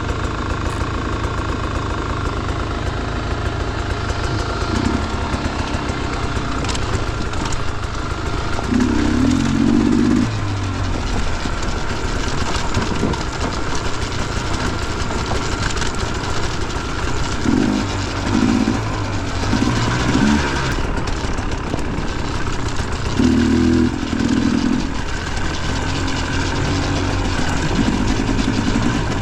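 Dirt bike engine running under way, rising briefly with throttle about five times.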